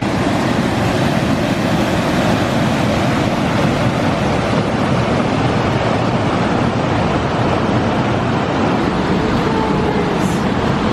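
Rushing water from a mountain creek or waterfall: a loud, steady roar that starts abruptly.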